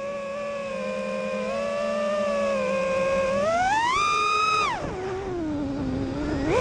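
FPV quadcopter's brushless motors (2207 1900 kV on 6S) and props whining steadily, then rising sharply in pitch as the throttle is punched about three and a half seconds in, falling to a low whine about a second later as the throttle is chopped, and climbing back up near the end.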